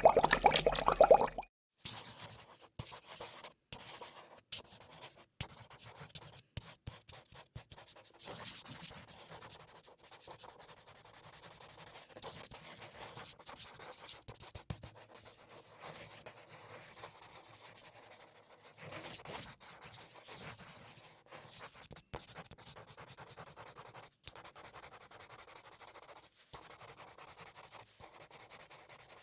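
Faint, continuous scratching and rubbing on a surface, broken every second or so by abrupt cuts. It follows a louder, different sound that stops about a second and a half in.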